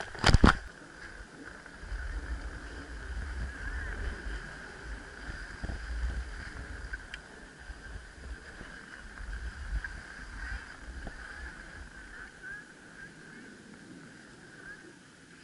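Wind rumbling and buffeting on a moving action camera's microphone as its wearer slides down a packed-snow slope, with a couple of sharp knocks on the camera just after the start. The wind noise dies down near the end.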